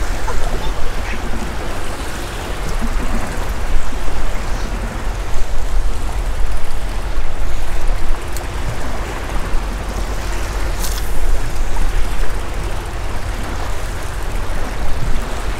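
Wind buffeting the microphone in uneven gusts, over the wash of choppy sea water around a small drifting boat.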